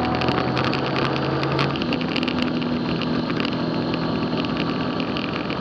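Motorcycle engine running under way with a strong rush of wind and road noise; the engine note changes about two seconds in.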